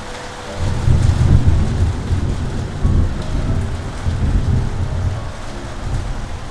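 A deep rumble of thunder starts about half a second in and rolls on for several seconds, slowly fading, over steady rain.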